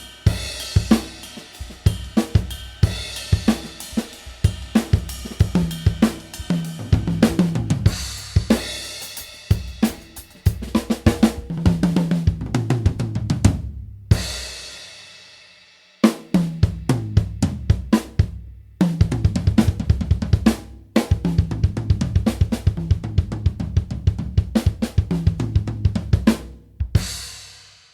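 Drum kit with Arborea cymbals played in grooves and fills: snare, bass drum, hi-hat and cymbal crashes. About 14 seconds in the playing stops on a cymbal ringing out and goes quiet briefly, then starts again about two seconds later and ends on a crash that rings out.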